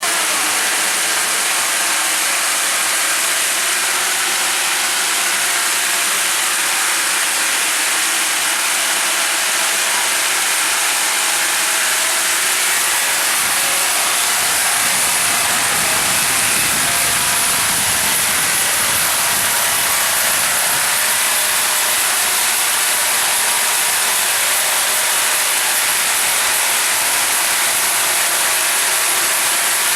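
MJ2500 horizontal band sawmill running, its band blade cutting through a hardwood log: a steady, loud hissing machine noise.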